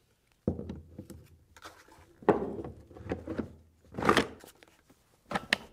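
Hard plastic battery pack of a Unitree Go2 Pro robot dog being slid and pushed into the battery slot in its body: scraping and knocking of plastic on plastic, with a few sharp clicks near the end.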